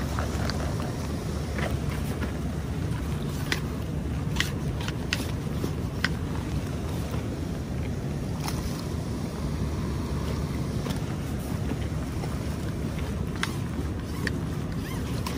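Steady low rush of wind and swollen river water, with scattered sharp clicks at irregular intervals.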